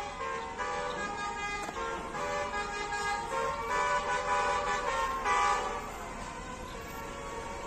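Bus telolet horn, a Basuri multi-tone air horn, playing a tune of stepped notes. It is loudest about four to five seconds in and settles to quieter, steadier tones near the end.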